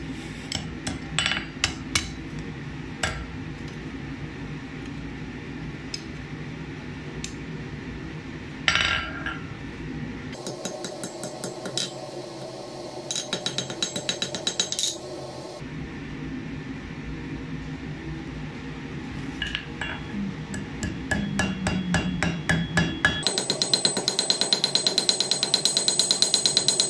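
Hand hammer striking a small piece of hot steel on an anvil: scattered blows at first, then quick runs of strikes, about five a second near the end, the anvil ringing with each blow.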